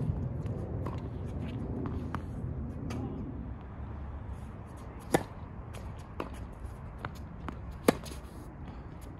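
Tennis ball struck with a Wilson Pro Staff 97 racket in a rally: a sharp serve hit about five seconds in, a few fainter hits and bounces from the far end, then a loud forehand strike near the end.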